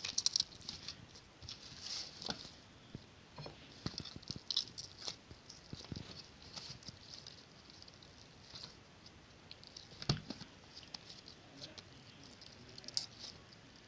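Hands shaping soft yeast dough into balls on a metal tray: quiet, irregular pats and squishes of the dough with a few light knocks against the tray, the strongest about ten seconds in.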